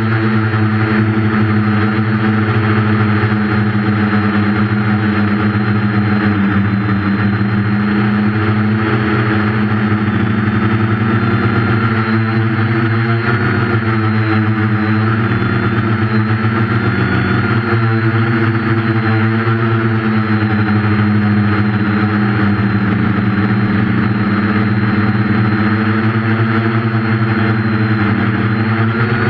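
Quadcopter's four 1200kv brushless motors spinning 8.5-inch propellers: a steady whir whose pitch rises and dips gently as the throttle changes, recorded by the camera on board the craft.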